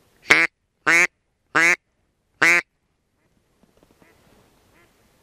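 Duck quacking: four loud, short quacks in the first two and a half seconds, each about a fifth of a second long and spaced roughly half a second to a second apart.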